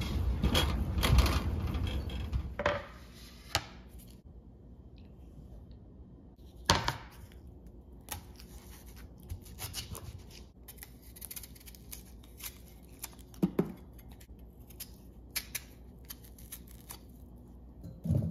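For the first few seconds, wind on the microphone and a loaded shopping cart rolling and rattling. Then a kitchen knife peeling and cutting a yam on a wooden cutting board, in scattered short scrapes and clicks with an occasional knock of the blade on the board.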